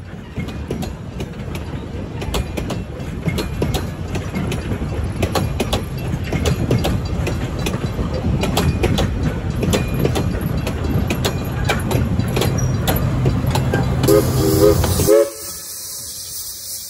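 Narrow-gauge passenger coaches rolling past, with a low rumble and rapid clicking of wheels over rail joints that grows louder. Near the end come a few short, high toots. Then the sound cuts off abruptly to a quieter, steady hiss.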